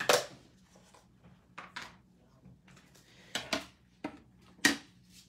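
A handful of short, sharp plastic clicks and taps from handling a Memento ink pad and a clear acrylic stamp block, the loudest right at the start and again near the end.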